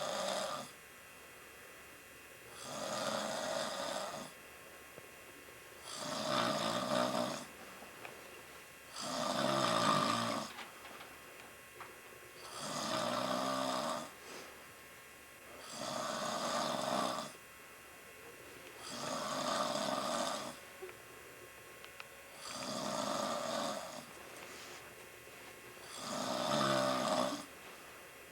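Steady, regular snoring in deep sleep: a long rasping snore about every three and a half seconds, nine in all, with near quiet between them.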